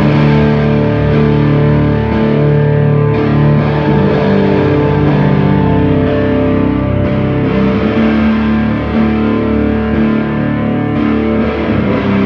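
Loud live drone rock: a Travis Bean TB1000S electric guitar played through distortion and effects over layered, sustained droning tones, steady throughout.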